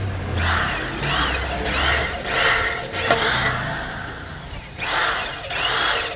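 An Oshima K550 corded drill bores a twist bit through a thin galvanized steel purlin. The motor and bit cutting the metal come in a series of short surges of about half a second each, as the trigger is worked.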